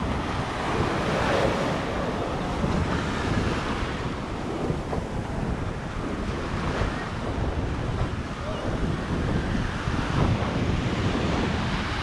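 Small sea waves washing up the sand at the shoreline, a steady hiss that swells and fades, with wind buffeting the microphone as a low rumble underneath.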